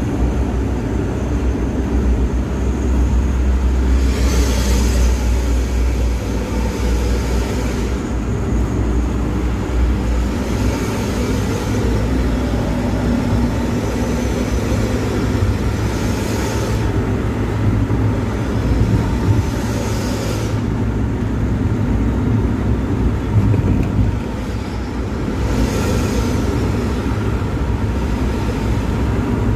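Steady low engine and road rumble heard inside a vehicle cruising on a highway. A few brief rushes of hissing noise rise and fall over it.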